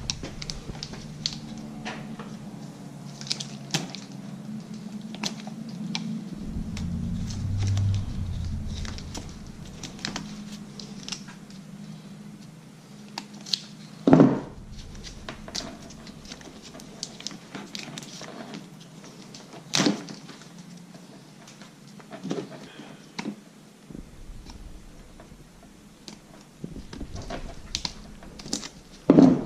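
Hand work on a backpack leaf blower's plastic housing and throttle cable loom: scattered light clicks, rustles and taps from parts and tape being handled, with three louder knocks spread through, the last near the end.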